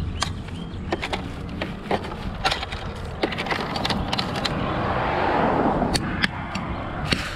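Clattering clicks and knocks of plastic parts as an upright vacuum cleaner, its ribbed hose and power cord are handled with gloved hands. A brief rushing noise swells and fades about five seconds in.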